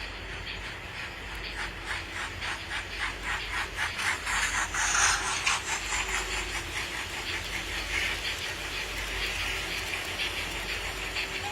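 Onboard sound of a Minitrix BR 18 N-scale model steam locomotive running: steady rhythmic chuffing at about five beats a second, with a louder burst of steam hiss about five seconds in, over a low motor hum.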